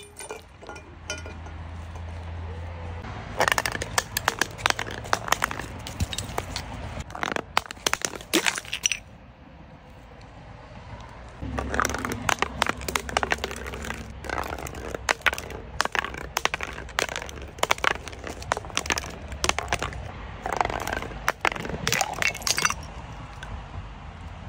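Brittle objects being crushed: dense runs of sharp cracks and crunches. The cracking starts a few seconds in and pauses for a couple of seconds near the middle.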